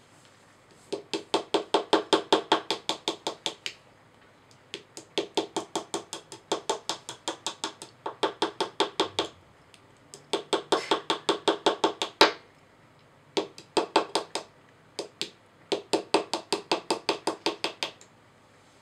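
Small plastic hammer tapping a pick into a plaster block from a dinosaur excavation kit: quick runs of sharp knocks, about seven a second, broken by short pauses.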